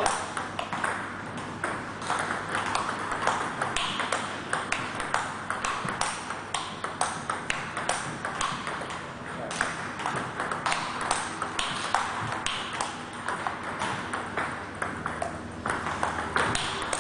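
Table tennis rally: the ball clicking off the paddles and bouncing on the table in a quick, steady rhythm of several knocks a second.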